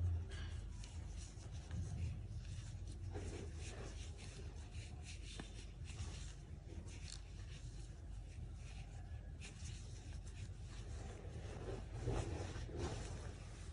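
Metal crochet hook working yarn through stitches along the edge of a crocheted piece: soft, irregular scratching and rubbing of hook and yarn over a low steady hum.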